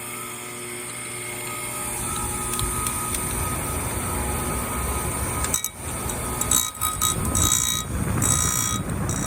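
Electric chainsaw-chain grinder with its motor and grinding wheel running in reverse, a steady whirring hum. From about halfway in, the wheel grinds against the chain teeth in several short, high-pitched rasping bursts.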